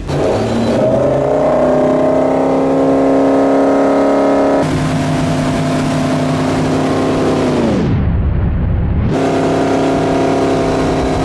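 Electronic background music with held synth chords. About seven and a half seconds in, the whole track slides down in pitch and drops out briefly, then comes back in.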